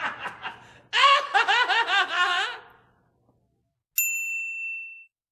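A man laughing in a short run of chuckles, then about a second and a half later a bright cartoon "ding" chime that strikes suddenly and rings out over about a second, the kind of sparkle effect laid on a wink.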